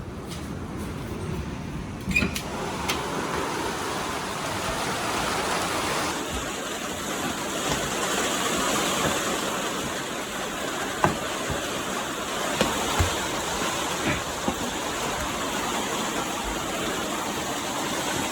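Heavy rain falling steadily, a dense even hiss, with a few sharp taps of drips here and there.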